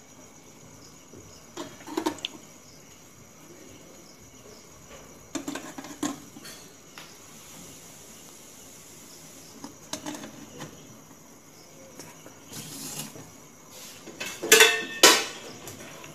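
Metal idli plates clinking and clanking as they are stacked on the stand and lowered into the steamer pot: a few separate ringing knocks, with the two loudest clanks near the end.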